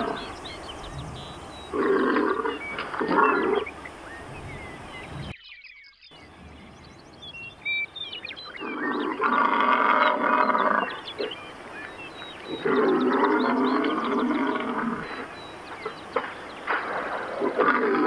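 Bull bison bellowing: deep, rough roars, two short ones and then several long drawn-out ones of about two seconds each.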